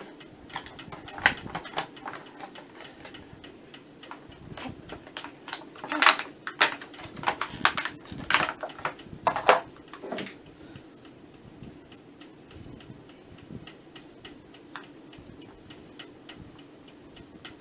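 Irregular clicks, taps and crackles of a boxed vinyl figure and its plastic packaging being handled, busy for the first ten seconds or so and then sparser. A faint low steady hum runs underneath.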